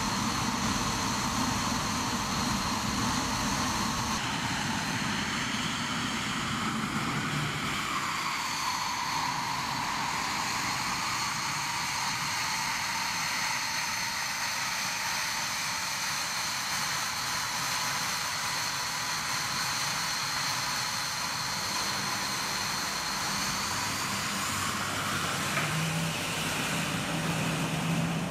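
Dassault Mirage 2000 fighter's SNECMA M53 jet engine running at low taxi power: a steady high-pitched whine over a rushing hiss, its tones shifting about eight seconds in.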